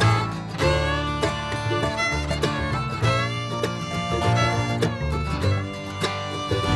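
Background bluegrass-style music with guitar and fiddle over a steady plucked rhythm.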